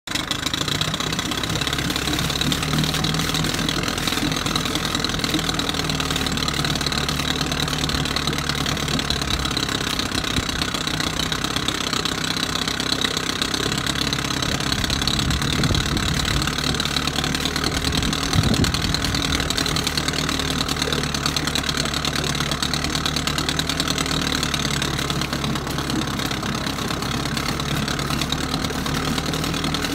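1964 Johnson 40 hp two-stroke outboard motor running steadily in a test barrel, with the water churning in the barrel. It has just been serviced with a new head gasket and a renewed water pump impeller and housing.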